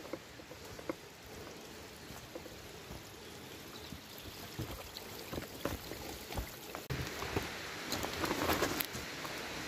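Small woodland stream running over stones, a steady rushing hiss that gets louder about seven seconds in, with scattered crunches and clicks of footsteps on twigs and leaf litter.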